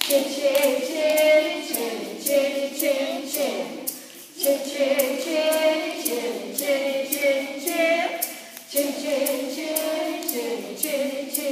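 A group of children singing a chant-like song together, a woman's voice among them, over steady rhythmic clapping about twice a second.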